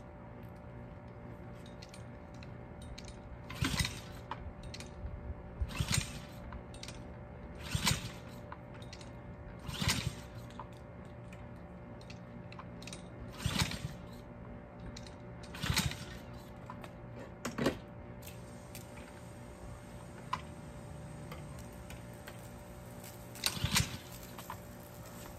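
Repeated attempts to start a pressure washer: a short burst of noise about every two seconds, over a low steady hum.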